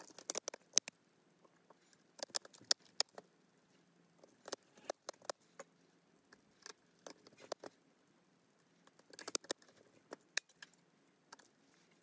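Small clicks and taps of hands and a small tool against a Nintendo Switch Lite's circuit board and plastic housing during reassembly. They come in short clusters every couple of seconds.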